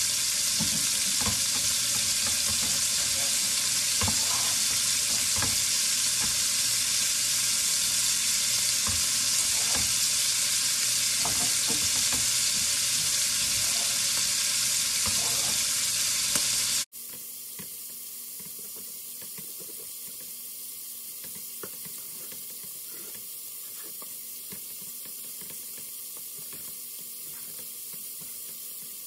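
Chuck roast cubes sizzling as they sear in hot bacon fat in an enameled Dutch oven: a loud, steady hiss with scattered crackles. About two-thirds of the way through it cuts off abruptly to a much quieter, duller hiss.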